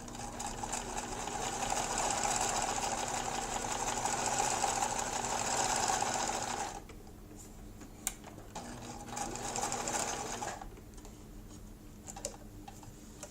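Brother VX-1010 sewing machine running steadily as it sews a straight stitch. It runs for about seven seconds, stops, then runs again for about two seconds, with a few light clicks in the pauses.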